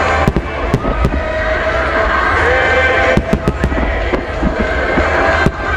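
Fireworks shells bursting in a rapid starmine barrage: several sharp bangs, bunched about three seconds in, over a continuous low rumble, with music playing underneath.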